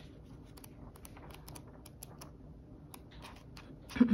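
Faint, irregular clicks and soft rustles of paper pages being handled and turned in a planner insert.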